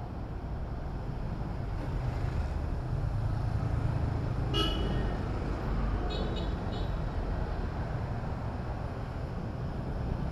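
Steady low rumble of car traffic and engines. A short car-horn toot sounds about halfway through, followed a second or so later by three quick high beeps.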